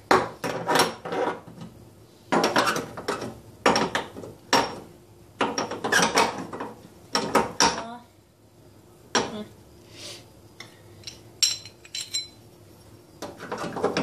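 Metal burner heads and caps of a gas hob being set down and fitted onto their burners: bunches of clinks and scraping metal clatter, with a short lull about two-thirds through.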